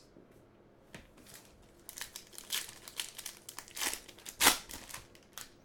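Plastic wrapper of a trading-card pack being torn open and crumpled, a run of short crinkling and tearing sounds from about two seconds in.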